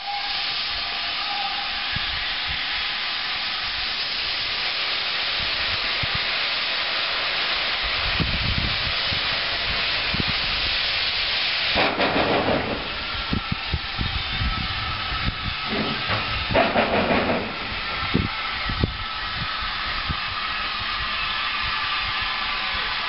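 Steam locomotive hissing steam steadily, with louder bursts of steam about twelve seconds in and again about seventeen seconds in.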